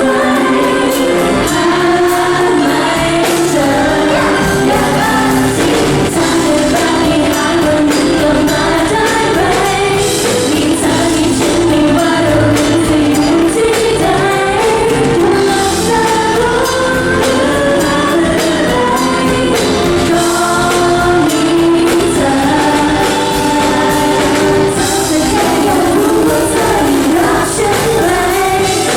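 Live pop music, played loud: female voices singing a melody together over pop backing music with a beat.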